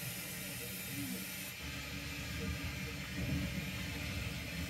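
O gauge model steam tank engine and its carriage running along the track, with a steady hiss and a low rumble that grows stronger about a second and a half in.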